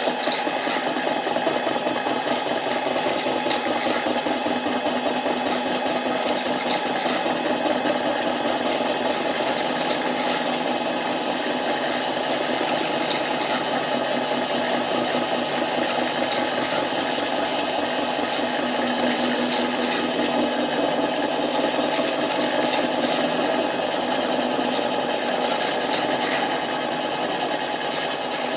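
Harbor Freight 7x10 mini lathe running steadily, with a thin high whine over its motor and gear hum, taking a light finishing cut of a couple of thousandths on a Husqvarna 372 chainsaw cylinder.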